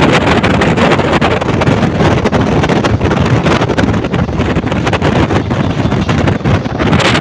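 Heavy wind buffeting the microphone on a moving passenger train, mixed with the train's rolling noise. The ragged, gusty noise goes on without a break.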